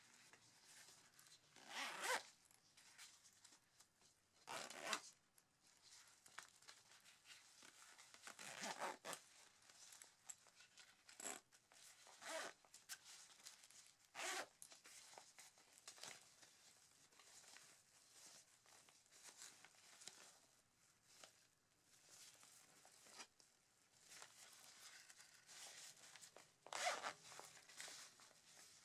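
Zippers of an Arc'teryx Maka 2 nylon waist pack being pulled open and shut in a series of short zips, with rustling of the fabric as the pockets are handled. The loudest zips come about two seconds in and near the end.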